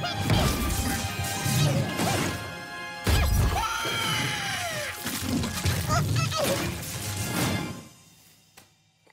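Action film soundtrack: dramatic score under crashing and smashing impact effects, with a heavy hit about three seconds in and gliding whine-like effects just after. It fades out near the end.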